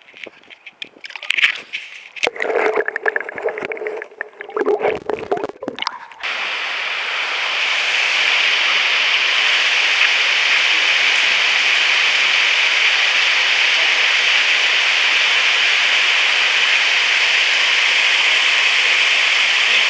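Camera handling and rustling for about six seconds, then a sudden switch to a steady rush of water flowing through a concrete channel, which holds to the end.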